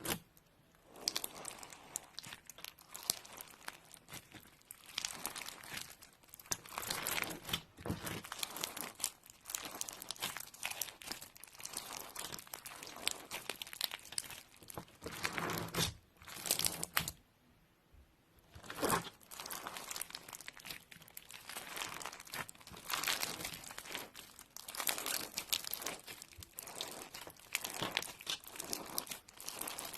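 Slime being squeezed and worked by hand: dense crackling and crinkling with small clicks and pops, coming in bursts of a few seconds, with a short quiet pause a little past halfway.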